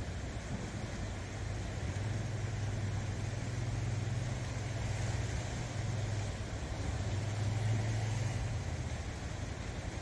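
Small sea waves washing over shoreline rocks, under a steady low engine-like hum that grows louder from about two seconds in and eases off near the end.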